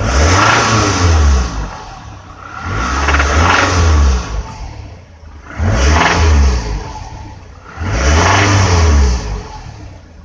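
2006 Toyota RAV4's 2.4-litre four-cylinder engine revved up and let back down four times, with a quick knock as it accelerates. The owner suspects severe piston slap, perhaps from a failed wrist pin, in an engine known for burning oil.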